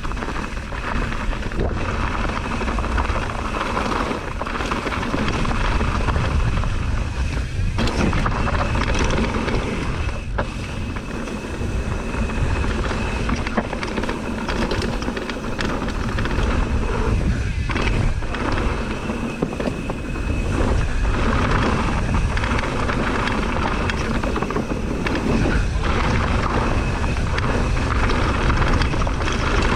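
Downhill mountain bike running over a rough trail: a steady rush of riding noise with frequent knocks and clattering from the bike hitting bumps, rocks and jumps.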